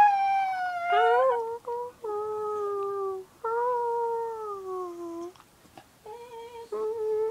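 Dog whining in long, drawn-out howling cries, about five in a row, each sliding slowly down in pitch with short breaks between them.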